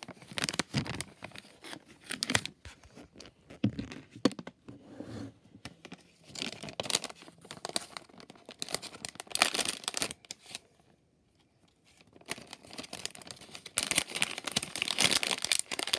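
Crinkly packaging of a Hatchimals CollEGGtibles blind pack being handled, crumpled and torn open, with a short quiet pause about two-thirds of the way through.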